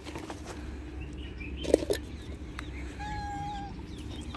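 Street cats meowing as they come up to be fed: a short meow a little under two seconds in and a longer, even-pitched meow about three seconds in.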